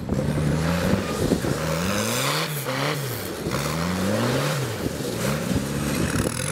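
A tractor engine being revved hard as the tractor is driven, its pitch climbing and dropping again three or four times.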